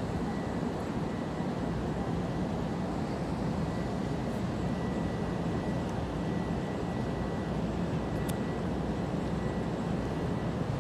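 Steady, deep rushing of a strong wind and rain squall, even in level with no breaks.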